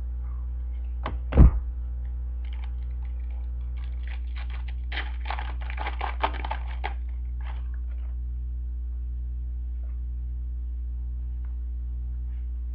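A single sharp knock about a second and a half in, then a few seconds of crisp crackling and clicking as a foil trading-card pack is torn open and the cards are handled. A low steady electrical hum runs underneath.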